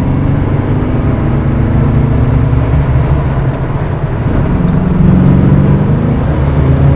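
1979 Corvette's L82 350 V8 with Hooker headers, heard from inside the cabin, pulling under acceleration. Its note climbs, dips briefly at a gear change about four seconds in, then climbs again louder.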